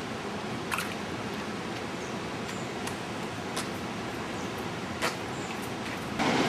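Steady rush of distant falling water, with a few faint clicks; the rushing turns markedly louder near the end.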